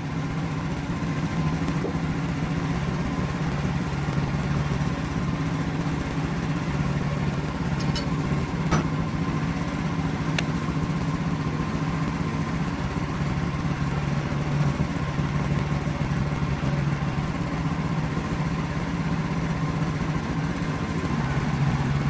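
WoodMizer LX55 sawmill's engine running steadily, with a faint steady whine above the hum and a few light clicks about eight to ten seconds in.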